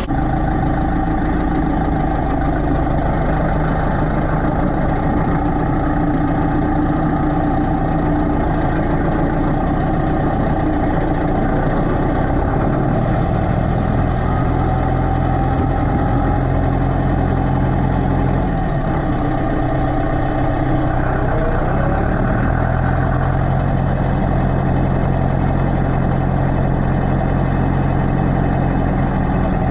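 Massey Ferguson tractor's engine running steadily while the tractor is driven, its note shifting a couple of times partway through.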